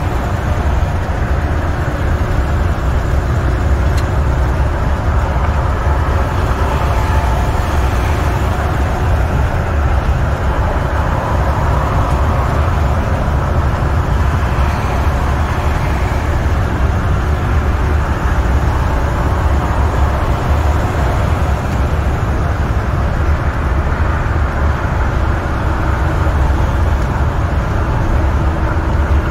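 The in-cab sound of an International semi truck's MaxxForce 13 diesel cruising at highway speed: a steady low engine drone with road rumble, unchanging throughout.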